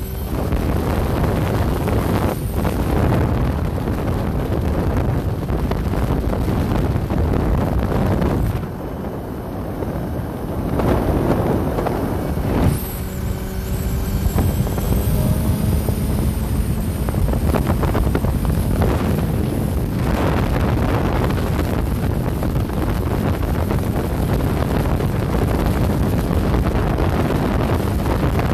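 Wind rushing over the microphone of a motorcycle riding at highway speed, with the engine and tyre noise underneath. About halfway through, the wind eases for a couple of seconds, and a few falling tones follow.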